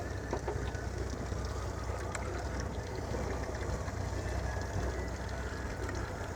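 Fishing boat's engine running with a steady low rumble, with a few faint knocks on board.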